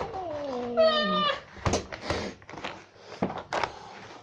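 A house cat meows once near the start, a call of a little over a second that falls in pitch, followed by a few short knocks and rustling.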